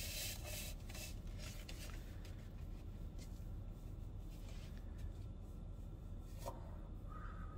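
Soft rustling and rubbing of a synthetic wig being pulled off and handled, busiest in the first couple of seconds, with one sharp click near the end.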